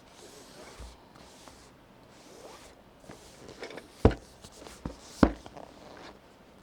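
Cidoo V21 aluminium numpad being handled: soft rubbing and rustling, then a few sharp clacks, the two loudest about a second apart past the middle.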